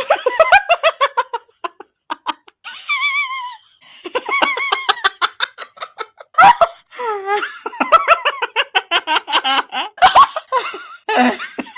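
Uncontrollable fit of laughter: rapid high-pitched giggling bursts, with a wavering high squeal about three seconds in and brief breaks for breath.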